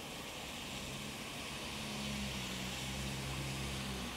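Heavy rain falling steadily. A low, pitched hum builds about a second in and cuts off abruptly near the end.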